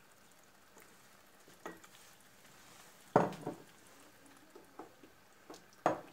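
Wooden spoon stirring menemen (eggs over tomatoes and peppers) in a stainless steel pan over a faint sizzle. It knocks against the pan a few times, loudest about three seconds in.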